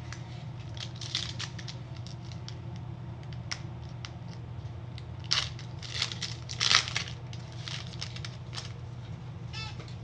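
Foil Pokémon booster pack wrapper crinkling and tearing open in a run of short crackles, the loudest rips about five to seven seconds in, over a steady low hum.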